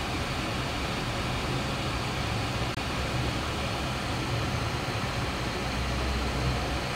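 Steady low rumble with a hiss of background noise, unchanging throughout.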